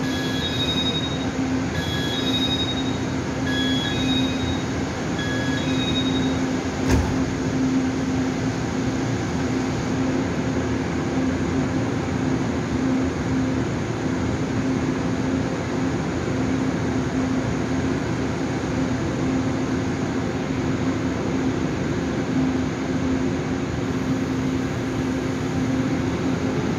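Taiwan Railway passenger train standing at the platform, with a steady hum and rumble and a constant low tone. A short two-note electronic beep repeats four times in the first six seconds, and a single sharp knock comes about seven seconds in.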